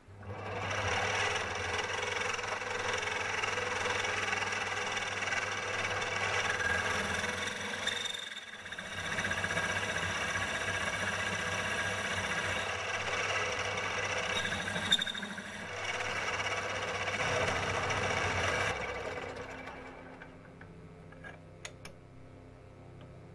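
Small bench metal lathe switched on and running steadily, motor and gear whine with the faceplate spinning, with two short dips in the middle; it is switched off and winds down near the end, followed by a few small clicks.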